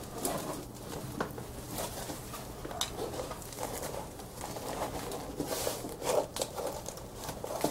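Cardboard aquarium cover being slid into place around a tank: scattered scrapes, rustles and light knocks of the cardboard against the tank, over a faint steady hum.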